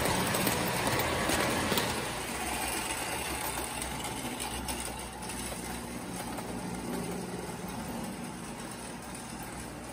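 A 1929 Lionel standard gauge coal train running on its three-rail track: the steady whir and rumble of the electric locomotive and the wheels of the coal hoppers, growing steadily fainter as the train moves away, with a few light clicks in the first two seconds.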